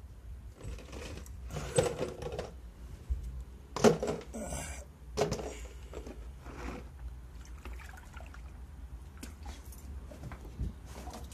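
Plastic tub and big plastic water bottles being handled while watering, with knocks, plastic crinkling and water being poured. The sharpest knock comes about four seconds in.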